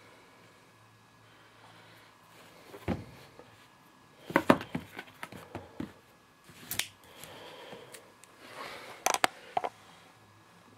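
DVD box sets being handled and set down, a scattered series of knocks and clicks with some rustling.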